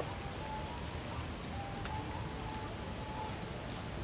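Short rising bird chirps repeating about once a second over steady outdoor background noise, with one sharp click about two seconds in.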